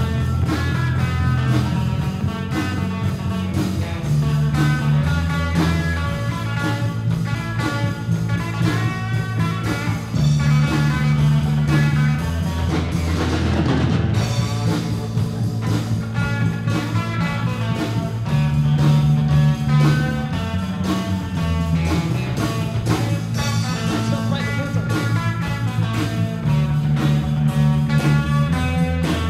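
Live rock band playing an instrumental passage: guitar over a bass line that changes note every couple of seconds, with drums, and a rising noisy swell about halfway through.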